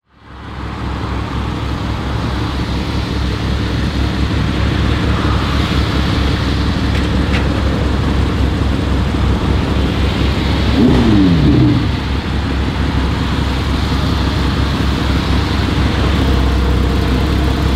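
Maserati GranTurismo Trofeo's 3.0-litre twin-turbo V6 idling with a steady low rumble, fading in over the first second. About eleven seconds in, an engine note briefly falls in pitch.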